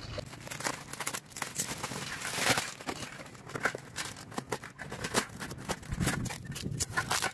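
Plastic parcel wrapping crinkling and tearing as a package is unwrapped, then scissors cutting and a cardboard box being pulled open: a run of crackles and sharp clicks, loudest about two and a half seconds in.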